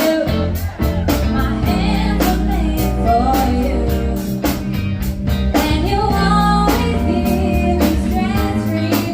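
Music: a singer with a band, the voice carrying the melody over steady bass and a regular drum beat.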